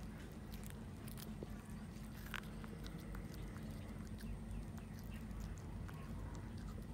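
A cat chewing raw chicken on the bone: an irregular run of small crisp crunches and clicks, over a steady low background hum.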